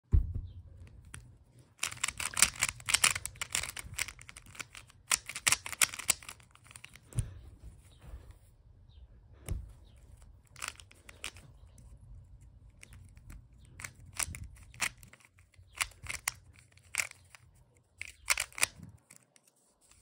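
Plastic 3x3 Rubik's cube being turned by hand: clacking layer turns, in two quick flurries about two and five seconds in, then single turns spaced out through the rest.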